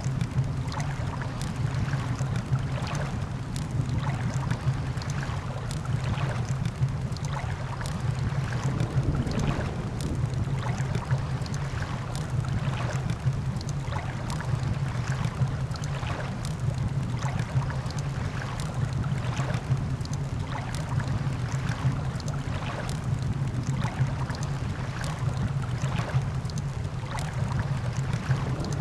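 Campfire crackling, with frequent irregular sharp pops over a steady low rumble.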